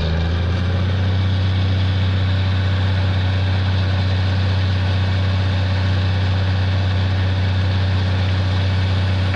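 Borewell drilling rig's engine and air compressor running steadily under load, a deep even drone, as compressed air blows water up out of the freshly drilled bore.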